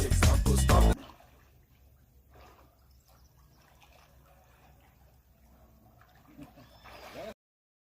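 Background pop song that cuts off abruptly about a second in, leaving only faint, indistinct low-level sound that stops dead shortly before the end.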